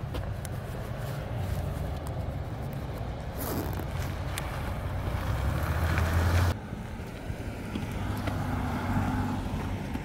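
Pickup trucks driving past on a road, a steady low engine hum with tyre noise that grows louder and then cuts off abruptly about six and a half seconds in, leaving fainter traffic noise.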